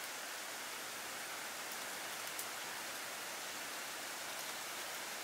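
Steady, even outdoor background hiss, with a couple of faint ticks a little past the middle.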